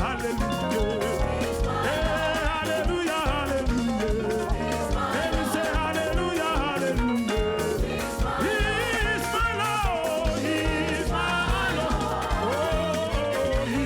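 Upbeat Ghanaian gospel praise music: a steady, driving drum-and-bass beat with singing over it.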